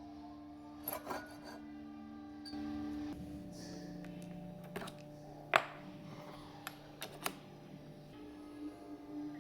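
Wooden parts being handled and fitted: several sharp wooden clicks and knocks, the loudest a little past halfway, with some rubbing, over a steady low hum.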